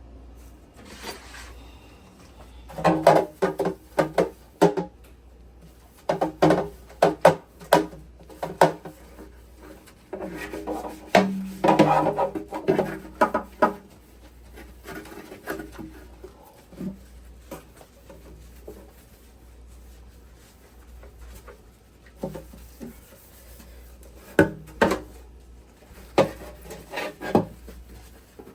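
Plastic fridge drawers being scrubbed and handled: spurts of rubbing and scraping mixed with short knocks and clatters, with quieter stretches between.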